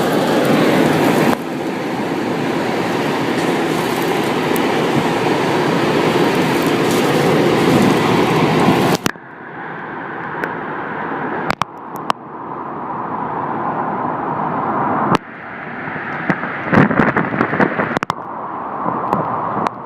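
Severe-storm wind, a loud steady rushing roar, spliced from several recordings. About nine seconds in it cuts to a duller, more muffled roar broken by scattered sharp knocks.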